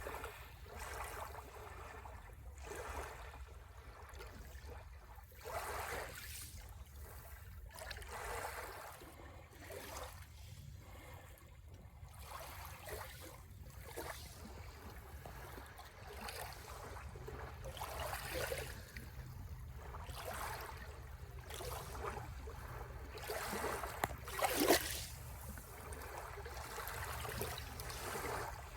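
Sea waves washing onto the shore, swelling and falling back every few seconds, with one louder wave breaking near the end.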